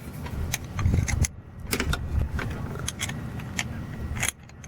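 Light metallic clicks and clinks of a wrench on the fuel filter's air bleed screw as it is tightened, coming irregularly about a dozen times.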